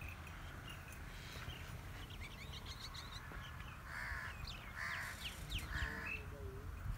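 A crow cawing three times, about four, five and six seconds in, with small birds chirping and twittering around it.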